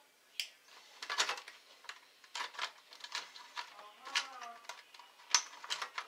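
Sharp clicks and light knocks of plastic and metal parts being handled inside an opened Asus laptop: a screwdriver at work and the DVD drive slid out of its bay.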